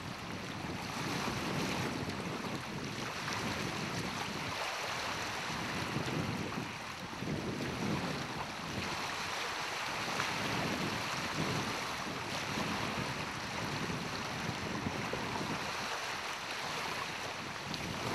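Wind buffeting the microphone in uneven gusts, over small waves lapping and washing on a stony lakeshore.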